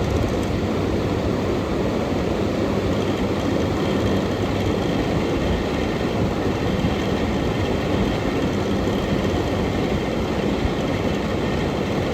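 Early-1990s Kenmore air conditioner running, its fan blowing a strong stream of air out the back as a loud, steady rush with a low hum.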